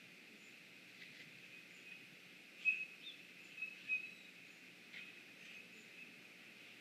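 Outdoor ambience of a few short bird chirps, the loudest about two and a half seconds in and two more near four seconds, over a steady high-pitched hum.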